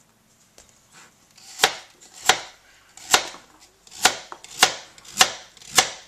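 Kitchen knife chopping carrots on a cutting board: about seven slow, evenly paced chops, starting about a second and a half in.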